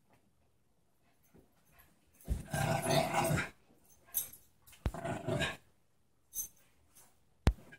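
Small dog play-growling in several short bursts while wrestling, the longest burst about a second long. Near the end there is a single sharp click.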